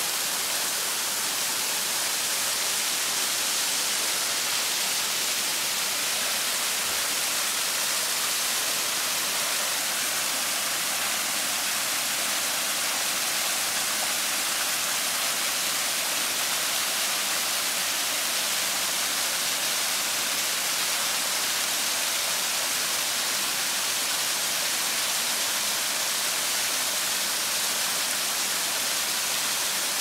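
Waterfall cascading over rock steps: a steady, unbroken hiss of rushing water.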